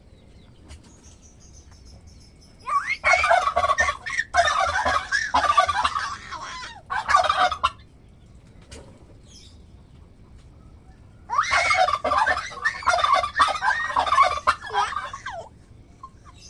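Turkey gobbling in two long bouts of rapid rattling calls, the first about three seconds in and the second about eleven seconds in.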